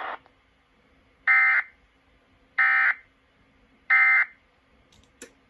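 Emergency Alert System end-of-message (EOM) signal: three short bursts of warbling digital data tones, each about a third of a second long and evenly spaced about a second and a half apart, marking the end of the alert. Two sharp clicks follow near the end.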